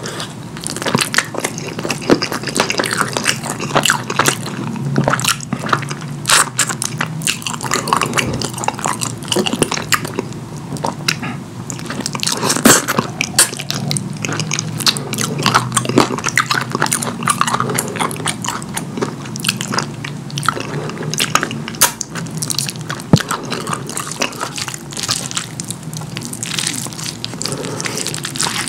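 Close-miked eating sounds: a person biting and chewing saucy curry food, with a steady run of wet mouth clicks and smacks.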